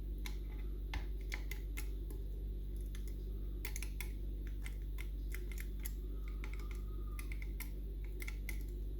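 Light metallic clicks and ticks at an irregular pace as a lever pick and tension wrench work the levers of a Union Strongbolt lever mortice lock, over a steady low hum.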